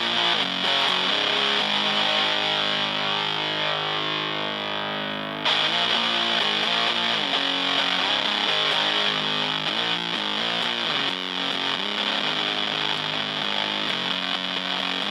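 Electric guitar played through a silicon Zuf Face fuzz pedal (a modified Fuzz Face) into a Fender Blues Junior valve amp: thick, buzzy fuzzed chords ringing on, a new chord struck about five seconds in, then choppier strummed playing in the last few seconds. The pedal's Zuf control is turned clockwise, adding buzz and bite.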